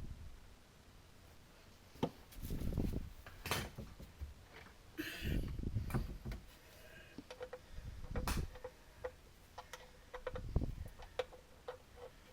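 Irregular knocks, clicks and dull thumps of hands and tools working on a garbage disposal's sink mounting, with a run of quick light ticks in the second half.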